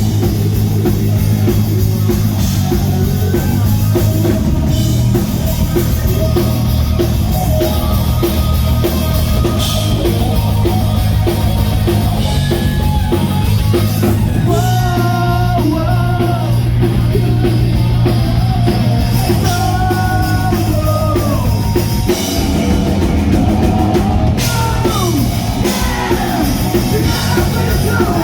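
Rock band playing loud and live, with a drum kit driving a steady beat under sung vocals.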